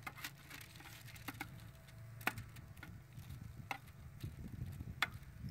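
Metal spatula clicking and scraping against a foil-lined tray and the grill grate as meat is flipped: several sharp, separate clicks a second or so apart, over a steady low drone.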